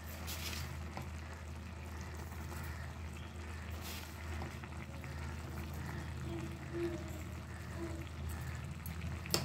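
Watery sprouted-moong and potato usal simmering in a kadhai: a faint steady bubbling over a constant low hum, with a couple of short soft ticks.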